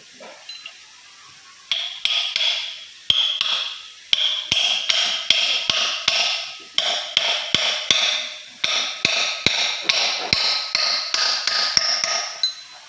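A hammer striking metal again and again, about two to three blows a second, each leaving a ringing metallic tone. The hammering starts about two seconds in and stops near the end.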